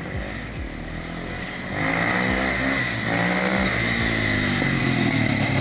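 2006 KTM 450 EXC-R single-cylinder four-stroke motorcycle with an Akrapovic exhaust accelerating, its engine note rising and dropping as it revs through the gears, getting louder about two seconds in.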